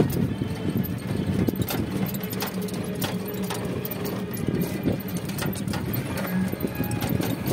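A small vehicle riding along a rough road: its motor hums steadily under a rattle of irregular clicks and knocks from the body jolting over the surface.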